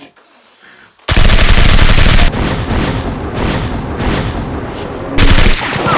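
Rapid automatic gunfire. A very loud burst starts about a second in and lasts about a second. It continues more quietly with a few separate sharp cracks, then another loud burst comes near the end.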